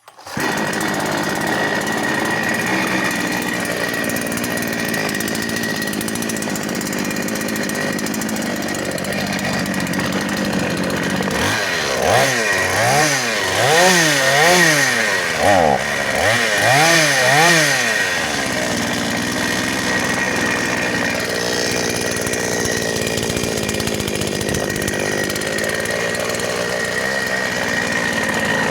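Chinese-made two-stroke petrol chainsaw running at idle. In the middle it is revved up and back down several times in quick succession, then it settles back to idling.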